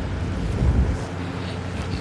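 Loud snoring from a sleeper, a low breath that swells to its loudest about half a second in and eases off after about a second.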